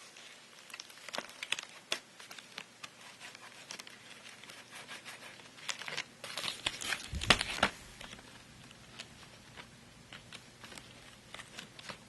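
Pleated HVAC air filters being handled: irregular crinkling and rustling with scattered sharp clicks and taps, busiest and loudest about six to eight seconds in.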